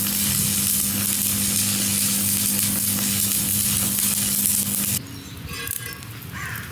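Electrode arc welding on a cast-iron part: the arc crackles and sizzles steadily over a low steady hum, then stops abruptly about five seconds in.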